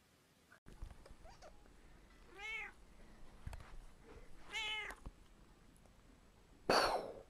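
A domestic cat meowing twice, each a short meow that rises and falls in pitch, about two seconds apart. Near the end comes a short, loud hissing burst, the mock gunshot for a finger gun.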